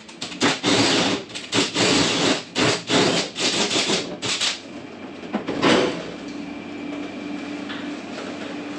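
Cordless drill driving a hole saw through the wall and its spray foam insulation, cutting in short rough bursts. The cutting stops a little over halfway through, with one last short burst about a second later.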